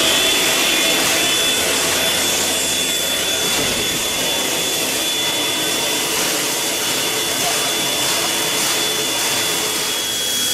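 Steady hiss of escaping steam from the NSW D59-class steam locomotive 5917, with a thin high whistling tone held all through and no exhaust beats.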